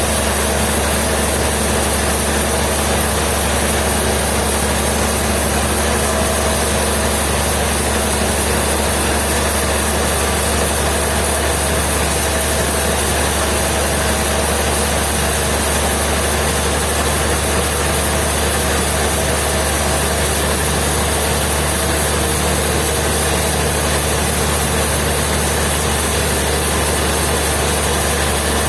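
Sawmill machinery engine running steadily at an even pace, a continuous low drone with hiss.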